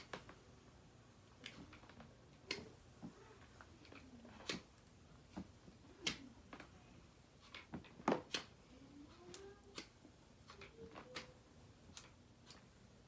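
Flat iron clicking as its plates clamp shut and open again on sections of hair: irregular sharp clicks, roughly one a second, with a louder pair about eight seconds in.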